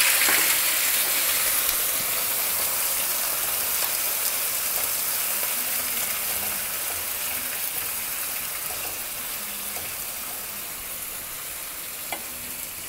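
Water hissing and sizzling in a hot oiled frying pan of seared ravioli, tomatoes and sauce just after a splash of water goes in. The hiss is loudest at the start and slowly dies away as the water steams off.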